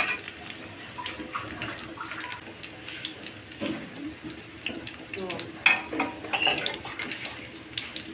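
Sliced spring onions sizzling and crackling in hot oil in a metal wok, with a spatula scraping and knocking against the pan now and then. One knock about two-thirds of the way through is louder than the rest.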